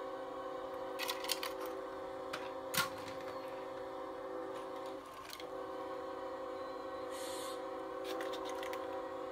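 Light clicks and knocks of plastic HO-scale model freight cars being handled, with one sharper knock a little under three seconds in. Under them runs a steady hum of several pitches, which breaks off briefly about five seconds in.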